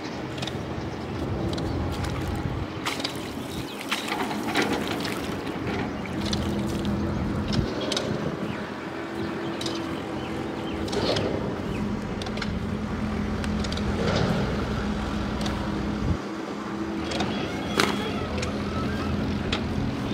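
A steady engine drone with occasional sharp clicks.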